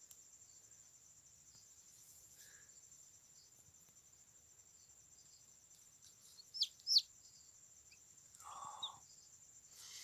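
A newly hatched chick peeping: two short, high, falling peeps about two-thirds of the way in. A soft rustle of the blanket follows near the end.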